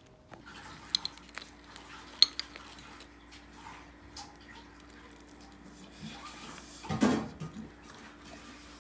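A few sharp clinks of dishes and cutlery, the loudest about two seconds in, over a faint steady hum. A brief, louder, muffled sound comes about seven seconds in.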